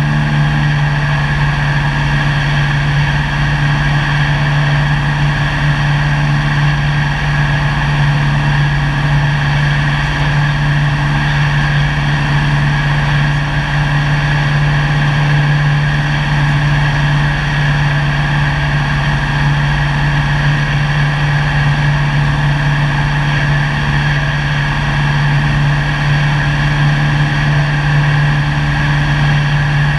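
Cessna 172's piston engine and propeller droning steadily in flight, heard from inside the cabin, a constant low hum with a steady rush of air over it.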